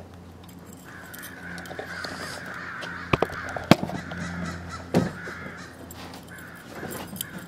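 Harsh, raspy animal-like calls repeating through most of the stretch, with several sharp clicks in the middle.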